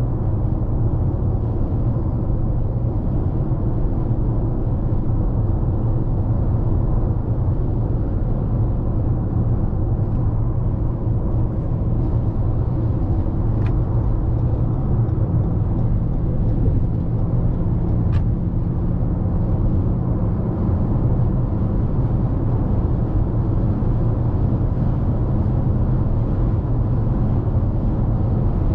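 Steady low rumble of road and tyre noise with engine hum inside a 2021 Toyota RAV4 XLE Premium's cabin, cruising at highway speed. A faint low drone rises out of it for a few seconds in the middle.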